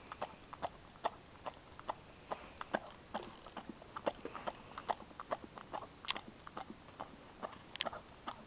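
Golden retriever licking and smacking her mouth at sticky peanut butter on her nose: a fast, irregular run of short wet clicks and smacks.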